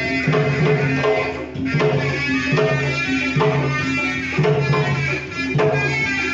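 Sundanese tarompet, a double-reed shawm, playing a reedy melody over a repeating hand-drum pattern.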